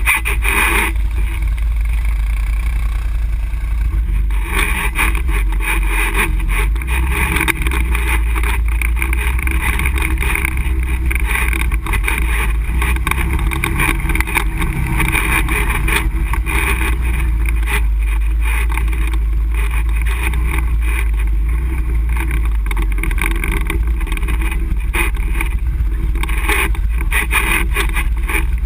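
ATV engine running steadily as the quad rides along a rough dirt trail, a continuous low drone mixed with frequent small knocks and rattles from the bumpy ride.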